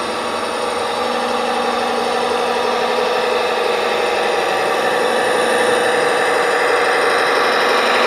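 Radio-controlled Komatsu dump truck running, giving a steady, engine-like drone that grows slowly louder as it drives closer.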